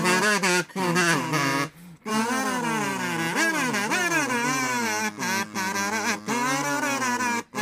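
Layered kazoos playing a song's sung melody, buzzy and bending between notes, over a lower kazoo part holding the bass line. There is a short break about two seconds in.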